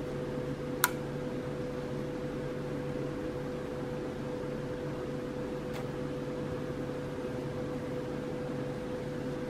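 Steady machine hum with a constant tone, and a single light click about a second in.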